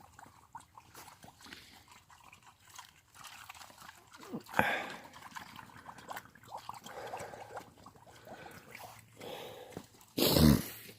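Pigs chewing and crunching feed, with scattered small clicks throughout. A short, loud noise comes about ten seconds in.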